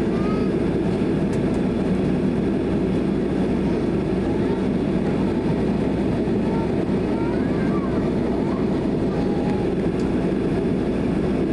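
Steady cabin noise inside a Boeing 767-300 taxiing on the ground: an even low hum of the engines at taxi power and the cabin air, with no change in level.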